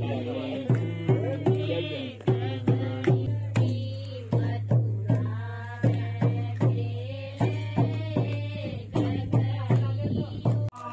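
Music: a voice singing a chant-like melody over a hand drum that strikes about two to three times a second, with a steady low drone underneath. It breaks off briefly just before the end.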